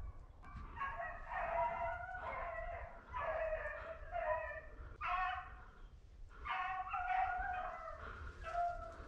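Beagles baying in a string of drawn-out, pitched calls about half a second each, some voices overlapping. This is a pack of rabbit dogs running a cottontail's trail.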